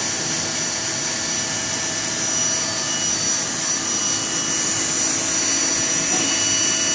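Gas-fired fluid bed coffee roaster running mid-roast: the steady rush of its air blower and gas burner, with a thin high whine over it and a slight rise in level near the end.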